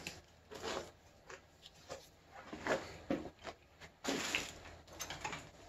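Faint handling noises from someone working out of view: scattered soft clicks and knocks, then a longer scraping rustle about four seconds in.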